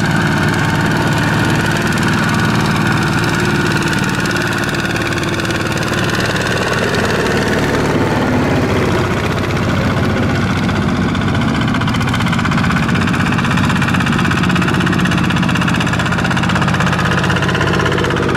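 Two-wheel walking tractor's single-cylinder diesel engine chugging steadily with a fast, even knock while it hauls a loaded trailer of rice sacks through mud.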